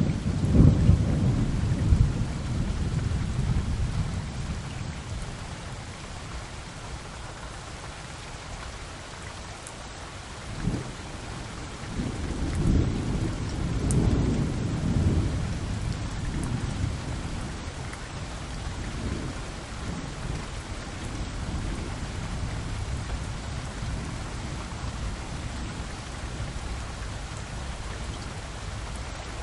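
Wind buffeting the microphone: irregular low rumbling gusts over a steady hiss, strongest at the start and again from about ten to sixteen seconds in.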